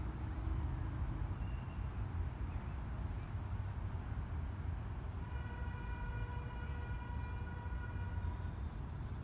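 Steady low outdoor rumble with a few short high chirps. Past the middle, a steady-pitched, siren-like tone holds for about three seconds and then stops.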